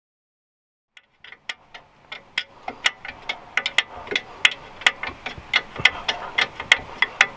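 Ratchet wrench clicking in quick short strokes, a few clicks a second, starting about a second in, as it turns a bolt on the car's lower control arm.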